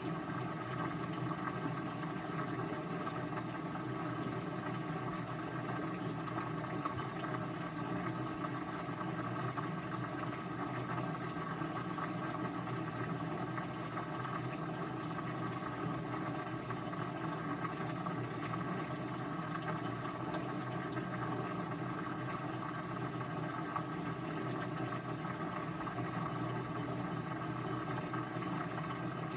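A steady, unchanging machine hum with a whir, holding level throughout without rhythm or pitch change.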